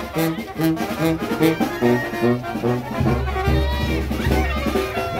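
Street brass band of trumpets and a sousaphone playing a lively tune, with short repeated notes on a steady beat over a strong bass line.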